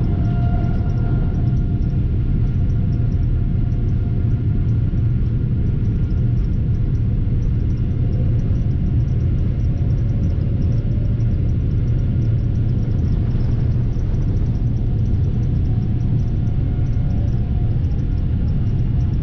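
Boeing 787 jet engines running with a steady deep rumble and a faint whine, on a takeoff that was aborted because of a problem with the right engine.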